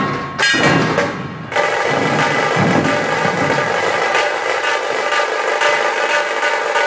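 Dhol tasha troupe drumming: large dhol barrel drums and tasha drums played together in a fast, dense rhythm. There is a short lull about a second in before the full beat resumes.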